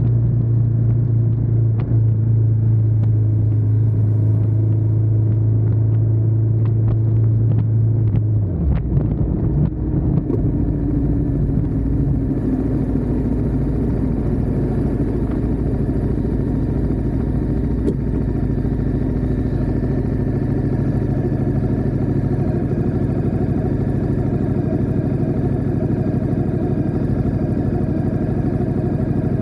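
Ducati Diavel 1260S's V-twin engine running under way at a steady pitch, then its note drops off and changes about nine seconds in. After that it runs lower and rougher, with a hiss of wind and road noise rising from about ten seconds on.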